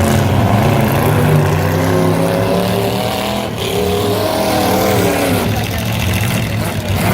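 Engines of several demolition derby cars revving, their pitch rising and falling as they rev up and back off.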